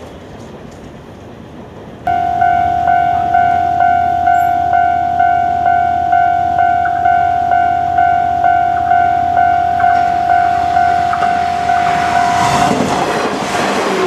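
Level-crossing warning alarm starting suddenly about two seconds in: a steady ringing tone that pulses about one and a half times a second. Near the end a green electric commuter train's rolling noise rises and swamps it as the train reaches the crossing.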